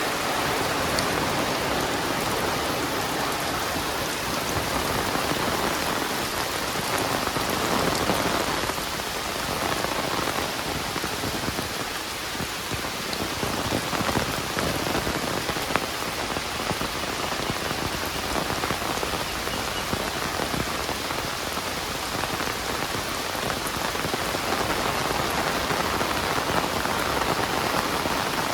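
Heavy rain falling steadily, with dense patter of drops on nearby surfaces.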